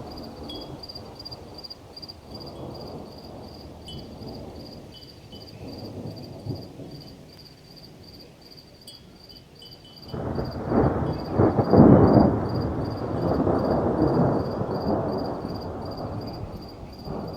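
Thunder rumbling: soft distant rumbles, then a loud peal about ten seconds in that peaks and rolls away over several seconds. Insects chirp steadily throughout in a high, evenly pulsing trill.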